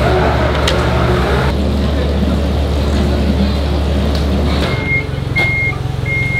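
A motor vehicle's engine running with a steady low rumble. A little past two-thirds of the way in, the rumble changes and a reversing alarm starts, a short high beep about every two-thirds of a second.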